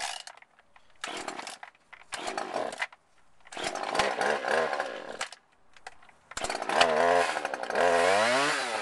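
Gas chainsaw being started: a few short pulls on the starter cord, then the engine fires about three and a half seconds in and drops out. It catches again about six seconds in and runs, revved up and down near the end.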